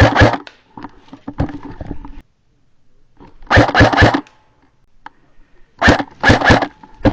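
A dog barking in three short volleys of two or three loud barks each: one at the start, one about three and a half seconds in, and one about six seconds in.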